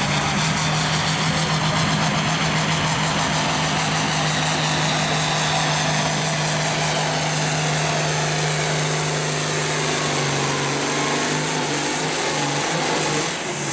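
Turbocharged International Harvester tractor's diesel engine running hard under full load as it drags a weight-transfer sled. The steady engine note breaks up and drops in the last few seconds as the pull comes to an end.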